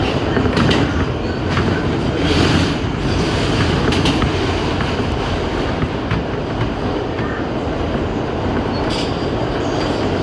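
New York City Subway A express train running at speed, a steady rumble with sharp clacks of the wheels over rail joints every second or few.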